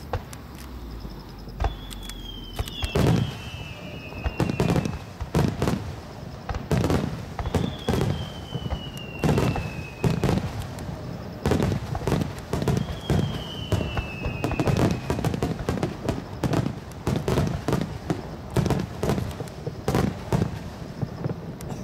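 Fireworks aerial shells bursting in quick succession, dozens of booms with rumbling tails, coming faster toward the end. Three long whistles, each falling in pitch, sound in the first two-thirds.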